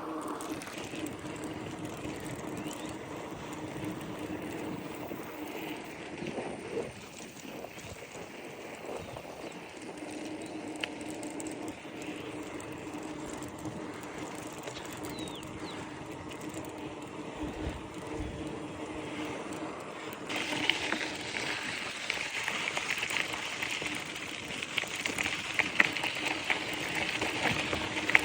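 Bicycle rolling along a trail: steady tyre and drivetrain noise with a constant low hum. About twenty seconds in it turns louder and brighter, with more crackle from the tyres on the surface.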